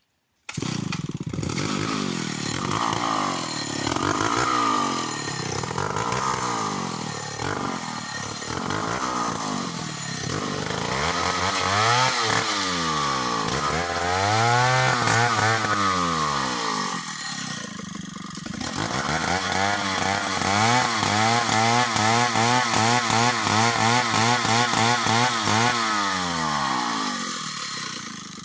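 Chainsaw running hard and cutting into a mango trunk, its engine pitch dropping and climbing again several times. Later it pulses evenly about twice a second, and it eases off near the end.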